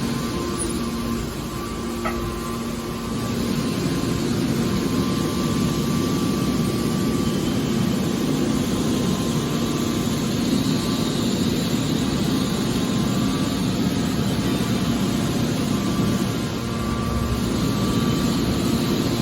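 Hydraulic scrap metal baler running, a steady machine hum with a few held tones from its motor and pump, and a light click about two seconds in.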